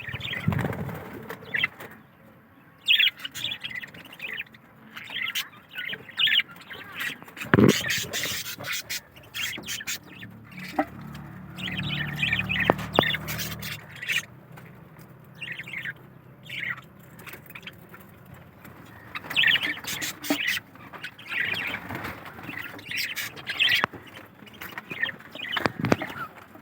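Colony of budgerigars chirping and chattering in short, scattered calls, with one sharp knock about a third of the way through and a brief low hum near the middle.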